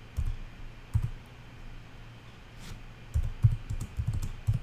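Typing on a computer keyboard: a few separate keystrokes, then a quick run of keys in the last second and a half.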